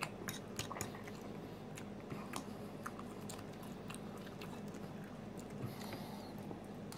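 A person chewing food close to the microphone, quietly, with many small sharp crunchy clicks.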